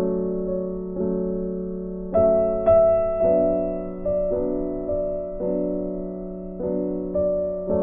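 Background piano music: slow, gentle chords struck about once a second, each fading before the next.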